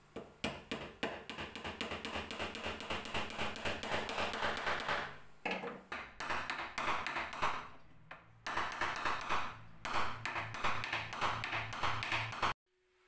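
Background music with a steady, tapping beat that cuts off suddenly near the end, followed by a faint steady tone.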